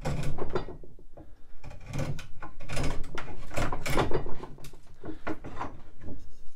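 Draw knife roughing a wooden chair spindle blank held in a shave horse: a run of irregular shaving strokes as the blade digs into the grain and is pulled back, tearing off large chips, loudest about three to four seconds in.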